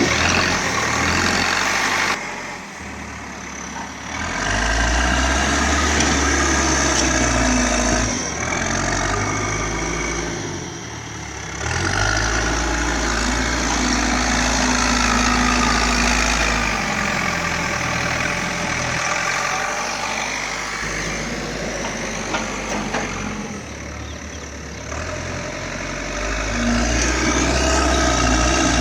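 Caterpillar heavy machine's diesel engine running continuously, its level dropping and rising again several times as the load changes.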